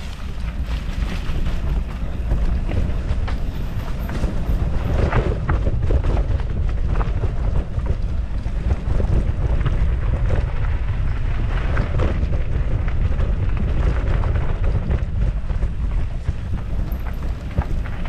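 Wind buffeting the camera microphone on a fast mountain-bike descent, a heavy steady rumble. Under it, knobby tyres roll over packed dirt and the bike rattles and knocks over bumps.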